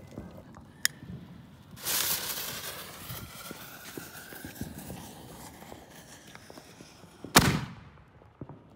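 Tannerite 60-gram canister firework shells going off: a loud report about two seconds in, followed by a hiss that fades over about a second, then a sharper, louder bang near the end with a short echo.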